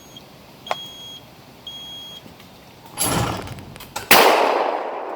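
Two short, high electronic beeps from a trap release's delay timer. About three seconds in comes a loud bang, then a second, louder 12-gauge over-under shotgun blast about a second later that echoes briefly.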